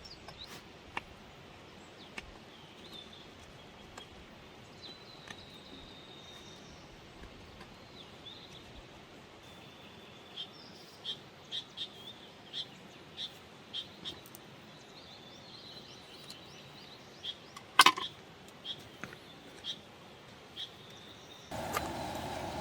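Small birds chirping with short, repeated calls over a steady faint hiss. There is a sharp click about 18 seconds in, and near the end a louder steady noise comes in.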